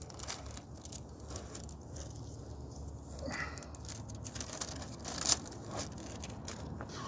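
Floor tile and its backing being handled and peeled: faint crackling and rustling, with one louder tearing noise about five seconds in.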